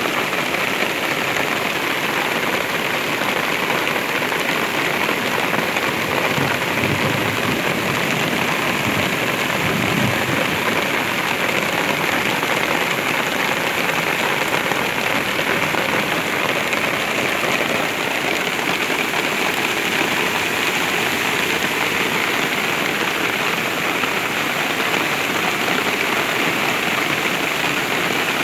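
Steady rain falling, mixed with muddy floodwater rushing and churning through a concrete feeder channel.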